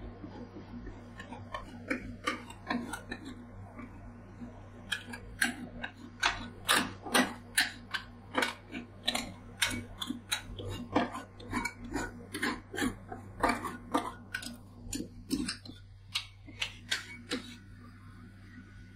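Metal spatula edges striking and scraping a steel ice-roll cold plate as they score a frozen sheet of cherry-tomato ice cream into strips. A run of sharp clicks, about two a second, starts about five seconds in and stops shortly before the end.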